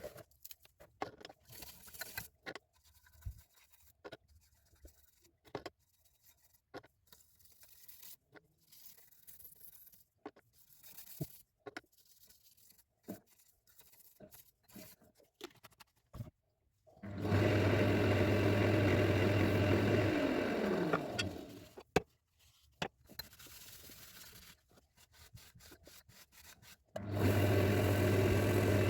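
Scattered light knocks and scrapes of hand work on wood. Then an electric workshop machine is switched on and runs with a steady hum, is switched off with its pitch falling as it winds down, and near the end is started again.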